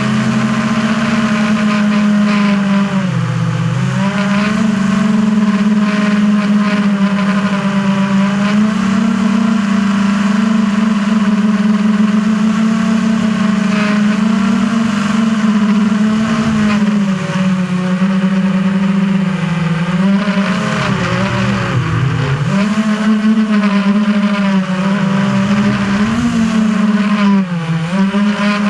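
FPV quadcopter's motors and propellers whining steadily, recorded by a camera mounted on the drone. The pitch drops and climbs back about three seconds in and several more times in the second half as the throttle is eased and reapplied.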